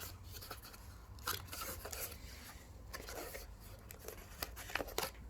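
Packaging being handled by hand: soft rubbing and rustling with scattered small clicks and ticks, as a spare watch strap is taken out of the box.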